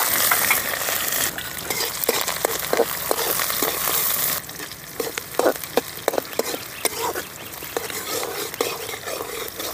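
Peeled shallots dropped into hot oil in a metal kadai, hissing in a strong sizzle that drops off sharply about four seconds in. After that they fry more quietly while a flat metal spatula stirs them, scraping and knocking against the pan.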